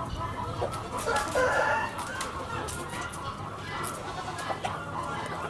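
A rooster crowing, loudest about a second in, with chickens clucking around it.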